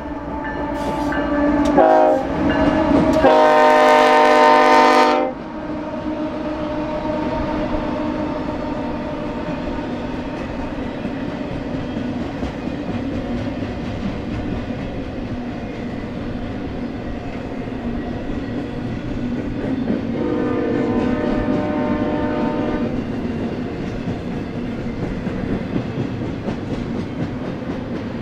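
Union Pacific freight locomotive sounding its multi-note air horn: a short blast about two seconds in, then a loud long blast lasting about two seconds, and a fainter blast about twenty seconds in. These sit over the steady running noise and wheel clatter of the passing freight train.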